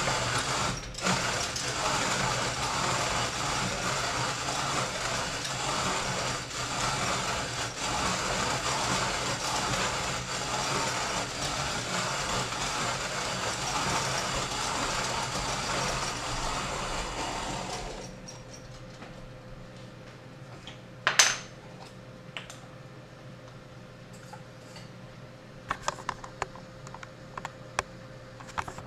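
Orphan Espresso Pharos hand grinder's conical burrs crunching coffee beans as the handle is cranked steadily. The grinding stops about two-thirds of the way through. A few light clicks and one sharp knock follow.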